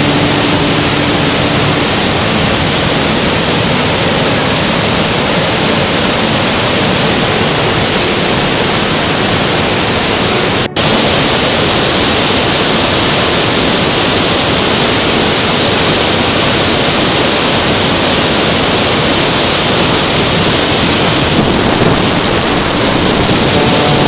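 Waterfall and whitewater rapids rushing: a loud, steady roar of falling water, broken by a momentary dip about eleven seconds in.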